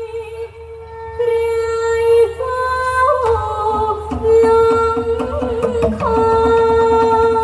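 A woman singing a Thai song through a microphone and PA over an amplified backing band with a steady beat, holding long notes.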